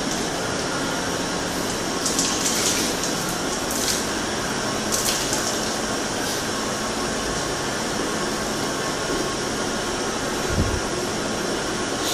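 Dairy milking machine running steadily with its vacuum pump hum and hiss, with a few short hisses a few seconds in.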